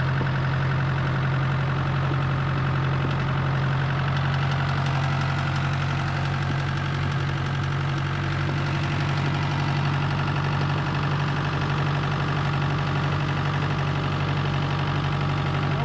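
Tractor engine running steadily at an even speed, with a constant low hum that does not change.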